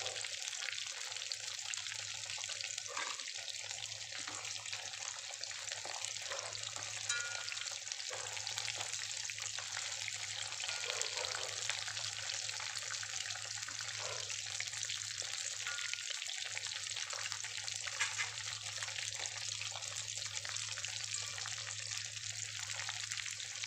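Food deep-frying in hot oil in a black iron kadai: a steady sizzle, with a few light clicks as the steel ladle turns the pieces.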